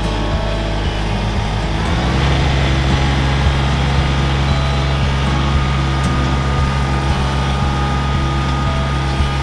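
Tractor engine running under load, pulling a middle buster plow through potato rows. About two seconds in, the engine note drops lower and grows louder.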